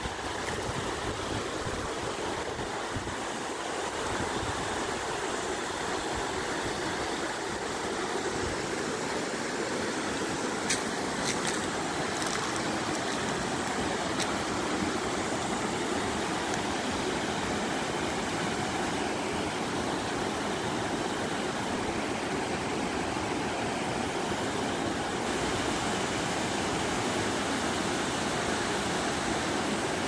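Small waterfall cascades pouring into a pool: a steady rush of falling water, with a few brief high clicks about eleven seconds in.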